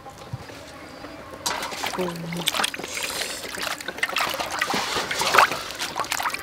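Water sloshing and splashing in a metal basin as hands rub and scrub a large elephant ear fish. The washing noise starts suddenly about a second and a half in, with many quick splashes.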